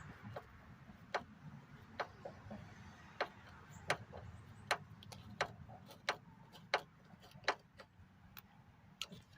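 Ratchet wrench with a T20 Torx socket clicking as a screw is tightened: a sharp click about every three-quarters of a second.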